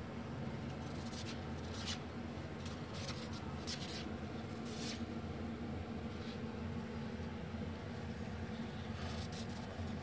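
Several short scratching and rubbing sounds in a row, over a steady low hum.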